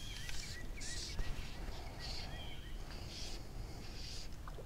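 Small birds calling: a run of short rising chirps in the first second and a half, and a thin whistled note about two seconds in, over a low rumble. Brief soft hisses recur about once a second.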